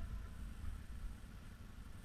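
Quad bike engine idling faintly, a low steady rumble.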